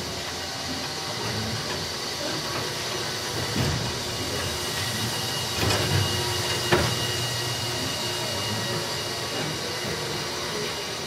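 Small train-themed roller coaster running along its track: a steady rumble and hiss of the wheels on the rails, with a few sharp clanks in the middle.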